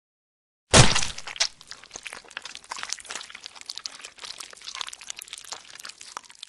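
Logo sound effect: a sudden heavy hit, then a dense run of crackling, crunching clicks that stops abruptly.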